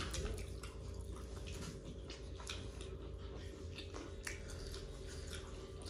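Quiet eating sounds: soft wet squishes and scattered clicks of fingers mixing rice, dal and mutton curry on plates, with mouths chewing, over a steady low hum.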